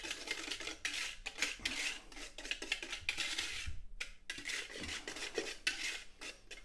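Stainless steel balloon whisk beating margarine and caster sugar with a little milk into mock cream in a mixing bowl: quick, rapid scraping and clattering strokes of the wires against the bowl, with a brief pause about four seconds in.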